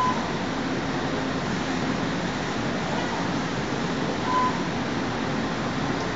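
Double-head laser cutting machine running: a steady mechanical hum and hiss from its fans and moving gantry, with two brief high tones, one right at the start and one about four seconds in.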